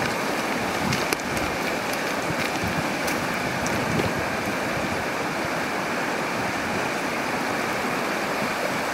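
Shallow, clear river running over a stony bed: a steady rushing of current.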